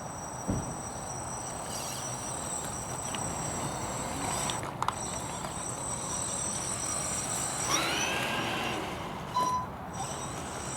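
A 3D-printed RC crawler's electric motor and gearbox running, with a steady high whine of unchanging pitch that cuts out briefly twice, about halfway through and near the end, each time with a click. A few short chirping sweeps come in about eight seconds in.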